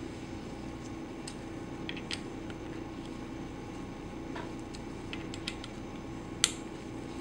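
Scattered faint clicks and ticks of a screwdriver working the faceplate screws on a vacuum pump, with one sharper click about six and a half seconds in, over a steady low hum.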